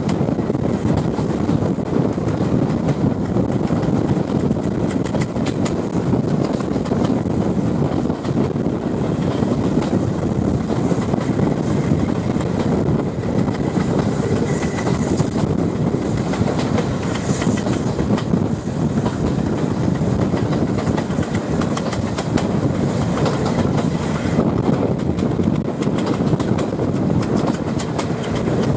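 Passenger coaches of a train running at speed: a steady rumble of wheels on the track with scattered clicks over the rail joints, mixed with the wind heard through an open carriage window.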